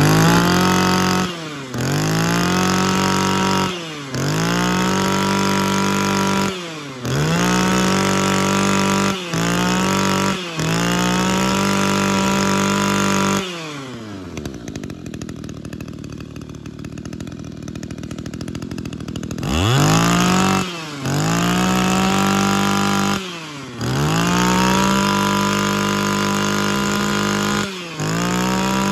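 Echo Kioritz SRE2625 brush cutter's 26cc two-stroke engine, revved up again and again: each squeeze of the throttle sends the pitch climbing to a high, steady scream, with a brief drop between squeezes. In the middle it falls back to idle for about six seconds before being revved again. It is running properly.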